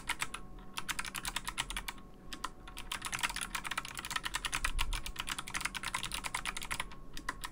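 Fast typing on a compact Bluetooth mechanical keyboard with clicky Kailh Box White switches, giving a crisp, clicky keystroke sound. The typing pauses briefly about two seconds in and again near the end.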